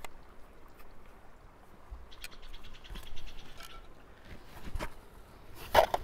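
Gear handling: a Bahco folding saw being handled, with a quick run of light ticks about two seconds in, then canvas rustling near the end as a hand reaches into the haversack's pocket.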